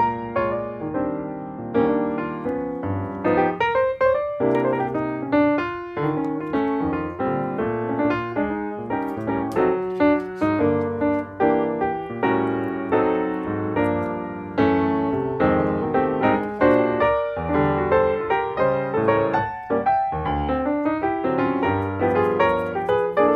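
Background piano music: a melody of many quick notes over a steady accompaniment.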